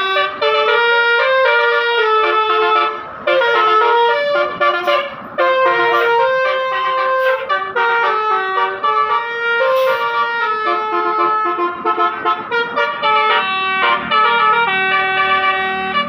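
Basuri telolet multi-tone bus horn playing a melody, one held note after another in quick steps, with a couple of brief breaks in the first few seconds.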